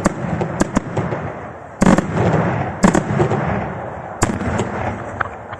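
Daytime aerial fireworks bursting overhead: a quick run of sharp cracks, then a loud bang about two seconds in with a long rolling echo, more bangs about three and four seconds in, then the noise dies away near the end.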